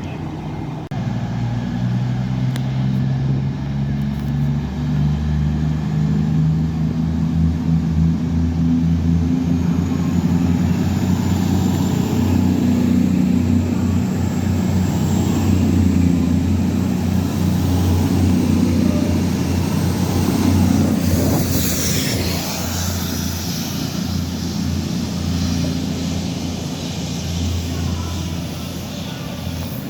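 Diesel train engine running close by, its low drone building over the first second or so and staying loud, with a short rush of noise about two-thirds of the way through.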